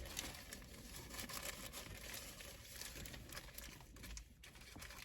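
Faint, irregular crinkling and rustling of a sandwich's paper wrapper being handled and opened.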